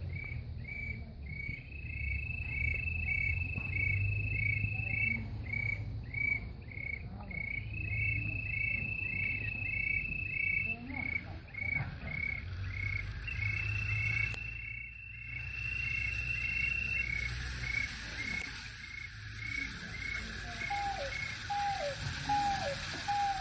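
Jungle animal sounds, frog and insect calls, imitated by performers with simple instruments and voices. A regular high chirp repeats about two and a half times a second, and a steady high tone is held three times over it. A hiss comes in about two-thirds of the way through, and lower falling chirps follow near the end.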